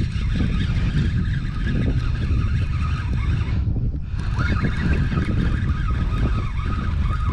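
Wind buffeting an outdoor camera microphone: a steady low rumble with no clear rhythm.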